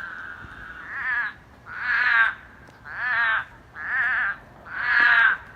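Frogs calling from wet ground: a run of sheep-like bleats, each about half a second long with a wavering pitch, repeating about once a second.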